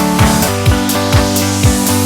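Background electronic dance music: a held synth chord over a steady kick drum, about two beats a second.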